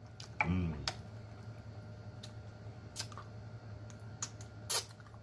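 Close-up mouth sounds of a person eating boiled pig feet: wet smacks and sharp clicks of lips and tongue while chewing and sucking the meat off the bone, with a short hummed "mmm" about half a second in. The loudest click comes near the end, as fingers are sucked clean.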